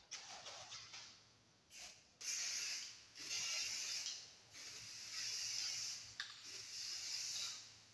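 Aerosol spray paint can spraying in four hissing bursts of about a second each, after a few short rattles of the can at the start.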